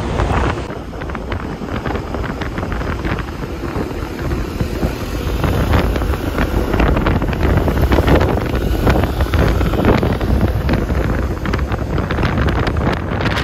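Wind buffeting a handheld phone microphone: a loud, uneven low rumble with irregular knocks and crackles, getting louder a few seconds in.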